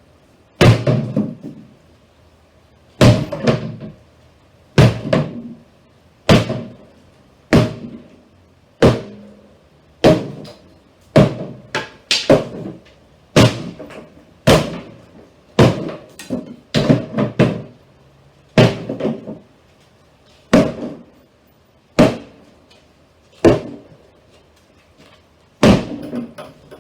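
Axe striking the wooden cabinet of a 1970s console stereo, about twenty heavy blows at roughly one a second, each with a short ringing tail.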